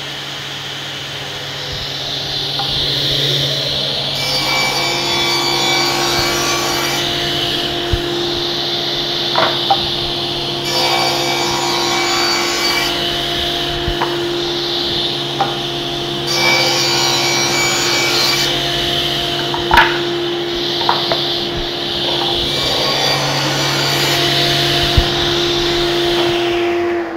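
SCM SC 1 Genius sliding-table circular saw running steadily while its blade, raised to about 6–7 mm, cuts a series of shallow grooving passes into wooden drawer panels, with the cutting noise rising on each of several passes. A few sharp knocks come from the workpiece being handled on the carriage.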